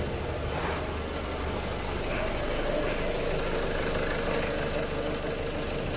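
Ford C-Max 1.6 TDCi four-cylinder diesel engine idling steadily, heard with the bonnet open.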